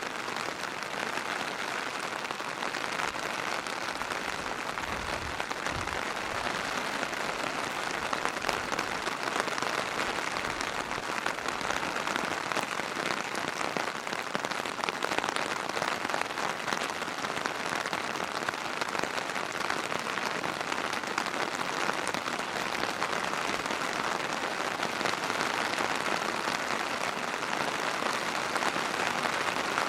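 Steady rain falling, an even, dense hiss of many drops.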